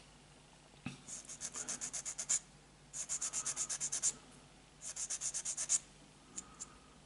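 Sanding stick rubbed quickly back and forth on a small plastic model-kit part, about eight short scratchy strokes a second, in three runs with brief pauses between them. Two light ticks follow near the end.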